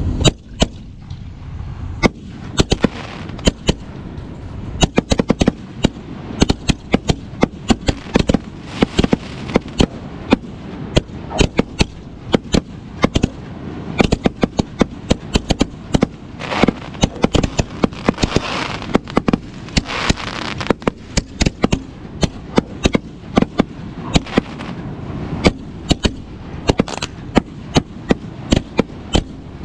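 Fireworks going off: a dense, irregular run of sharp bangs and cracks, several a second, over a continuous background of noise.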